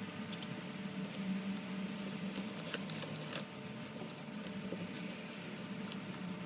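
Paintbrush working over the dresser's wooden surface: a light, continuous brushing and scratching with a few small clicks, over a faint steady hum.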